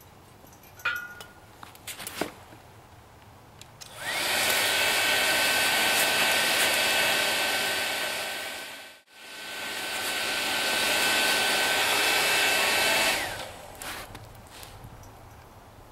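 Hair dryer used as the forge's air blower: switched on about four seconds in, its motor whining up to a steady loud rush of air, then switched off and winding down near the end. It drops out briefly once midway. Light clicks and knocks come before it starts.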